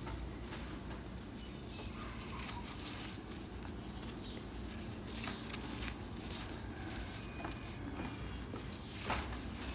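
Hand sifting and scraping through dry red dirt: loose soil and small clods trickling and crackling through the fingers, with a few sharper crunches, the loudest near the end.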